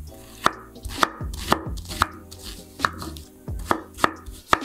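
Kitchen knife chopping a small onion on a wooden cutting board: about eight sharp knocks of the blade on the board, roughly two a second and unevenly spaced.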